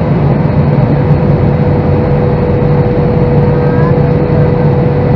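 Steady cabin noise of an Airbus A321-211 descending on approach: airflow and its two CFM56-5B turbofan engines, heard from a seat over the wing, with a steady hum held at one pitch.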